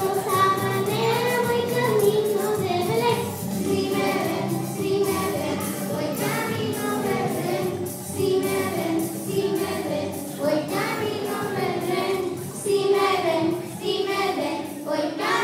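A children's choir singing a Christmas song in Spanish over musical accompaniment with a steady beat.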